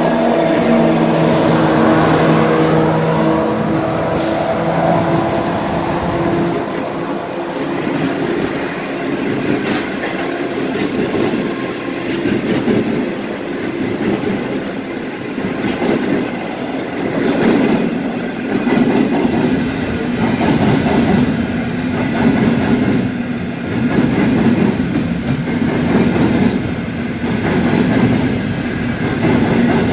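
Pacific National 82 class diesel-electric locomotive passing, its engine hum fading over the first several seconds. A long string of freight hopper wagons then rolls past, the wheels clacking rhythmically over the rail joints.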